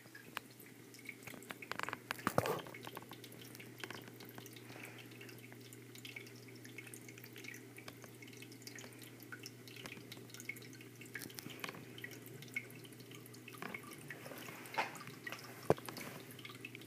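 Water splashing and dripping in a red-eared slider turtle tank, many small drips and splashes over a steady low hum, with a couple of sharper knocks about two seconds in and near the end.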